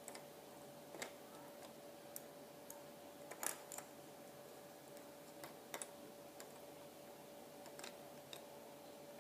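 Small plastic LEGO pieces being handled and pressed together: a scattering of faint, sharp clicks, a short cluster about three and a half seconds in the loudest, over a faint steady hum.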